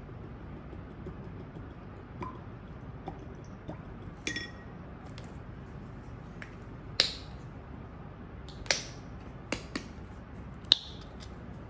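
Scattered sharp clicks and light taps of small hard objects being handled, likely paint tubes and their caps being picked out. One tap about four seconds in rings briefly, and the loudest click comes near the end.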